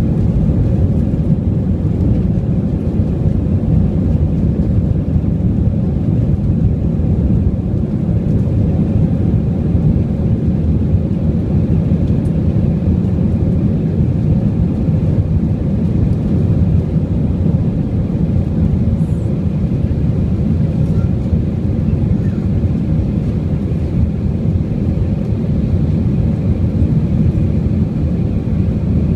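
Jet airliner heard from inside the cabin during take-off: a steady, even low roar of engines and airflow.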